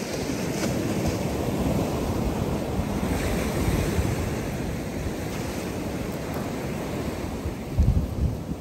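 Ocean surf washing onto the beach, with wind buffeting the microphone and a strong gust hitting it near the end.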